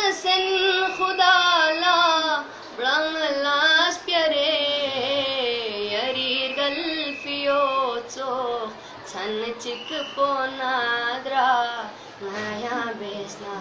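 A boy singing solo with no instruments: a slow song in long phrases whose held notes waver and bend.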